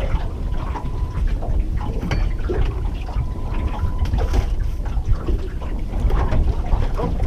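Wind buffeting the microphone and water splashing on a fishing boat, over a heavy low rumble, with scattered small knocks.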